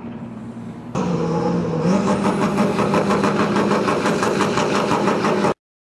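Turbocharged 2.3-litre 4G63 stroker four-cylinder of an AWD Mitsubishi Mirage drag car, running lower at first, then about a second in jumping to high revs held steady with a rapid, even stutter, as on a two-step launch limiter. The sound cuts off suddenly near the end.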